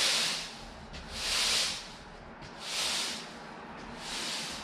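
Street sweeper's cylindrical main broom being rolled across a concrete floor, its bristles brushing the floor in four swishes about a second and a half apart.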